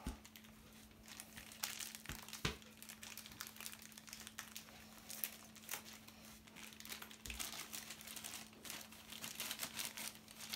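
Light crinkling and crackling of a small clear plastic bag being handled and cut open with scissors. A faint steady hum runs underneath.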